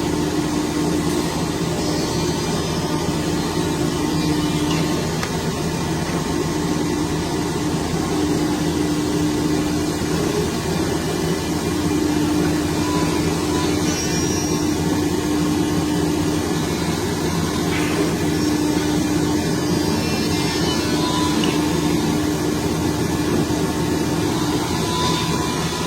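A machine running steadily with a constant hum and no breaks.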